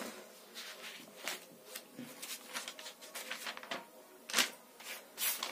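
Paper rustling as the pages of a textbook are leafed through, in irregular short bursts, the loudest about four and a half and five seconds in.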